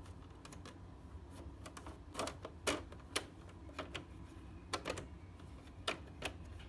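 Plastic air filter of a split air conditioner's indoor unit being pushed back into its slot: a string of irregular light plastic clicks and taps, most of them after the first two seconds.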